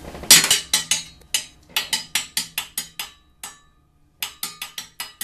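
A small child repeatedly banging a hard object, sharp knocks about four a second with a brief pause a little past halfway.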